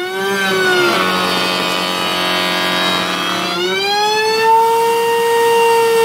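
Wood router in a router table running with a loud high whine. About a second in its pitch drops and holds lower as the bit cuts a handle recess into a hive-box board, and about three and a half seconds in it rises back to full speed as the cut ends.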